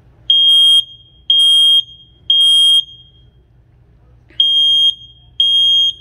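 Kidde 10-year lithium-battery smoke alarm sounding its self-test after its test button is pressed: loud, high-pitched beeps about half a second long. Three come about a second apart, then after a short pause the next group of three begins, the standard temporal-three alarm pattern.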